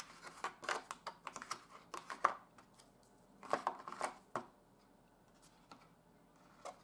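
Small packaging and accessory parts handled by hand: a run of light clicks and rustles over the first couple of seconds, and another cluster about three and a half seconds in.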